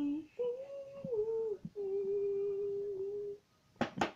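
A man singing long held notes without words: a short note that steps down in pitch, then one held steady for about a second and a half before breaking off. Near the end, a quick run of sharp taps begins.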